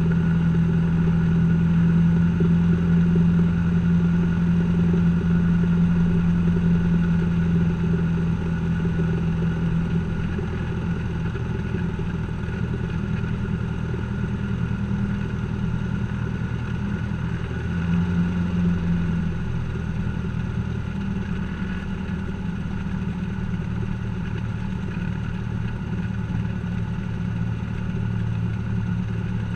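Cessna 172's piston engine and propeller running at low taxi power, heard from inside the cockpit as a steady drone. The engine eases back about a third of the way in, with a brief burst of power a little past the middle.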